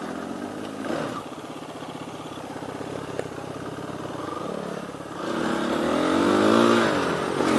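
Single-cylinder four-stroke dirt bike engines running at low speed, then revving louder with rising and falling pitch from about five seconds in as a bike pulls ahead.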